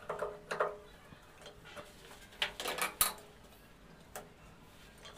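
Light metallic clicks and clinks of a spanner and pipe nut as the water-pipe connection under an electric geyser is loosened. There is a short run of clicks between two and a half and three seconds in and a single sharper click about a second later.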